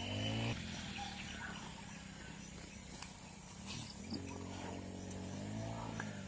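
Low, drawn-out animal calls: a strong one right at the start, then further calls that rise and fall in pitch from about four seconds in.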